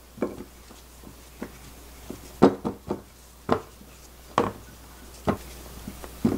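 Irregular light taps and knocks, spaced about half a second to a second apart, as slices of food are pressed and turned in flour in a glass baking dish.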